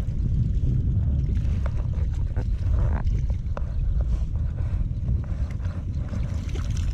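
Wind rumbling steadily on the microphone, with a few faint ticks scattered through it.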